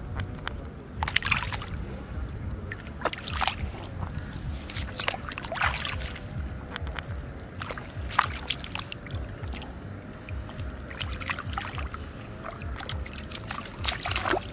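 Hands sloshing and splashing in shallow muddy water as they grope through mud and grass for fish, with several sharp splashes at irregular moments over a steady low rumble.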